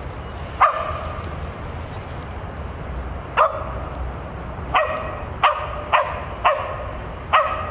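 West Siberian Laika barking at a squirrel it has treed: seven short, sharp barks, spaced out at first and coming faster toward the end.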